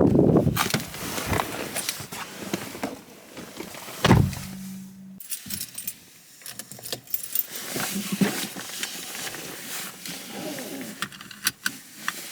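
Keys jangling and clicking in the hand, with many small rattles. There is a heavy thump about four seconds in, followed by a brief steady low hum.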